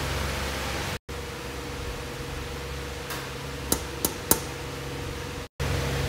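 Newly built desktop PC running just after power-on: a steady whoosh from its CPU-cooler and case fans with a steady hum under it, and three light clicks a little past the middle.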